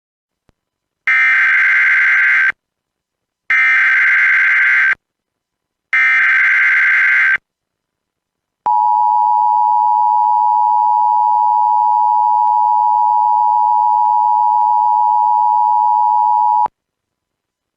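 Emergency Alert System SAME header: three identical bursts of screeching digital data, each about a second and a half long. These are followed by the EAS attention signal, a steady two-tone beep just under 1 kHz held for about 8 seconds before it cuts off, marking the start of an alert broadcast.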